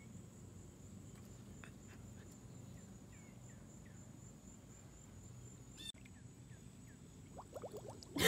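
Faint woodland ambience: a steady high-pitched insect drone, with a few short, faint bird chirps.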